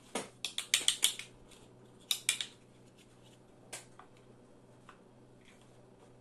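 Large plastic building blocks clacking together and being pressed onto one another: a quick run of sharp clicks in the first second or so, a couple more about two seconds in, and a single one near four seconds.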